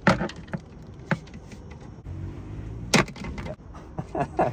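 A few sharp clacks and knocks from a fibreglass sail batten and a hand tool being handled on the boat's deck: one just after the start, one about a second in, a loud one about three seconds in, and a quick run of them near the end.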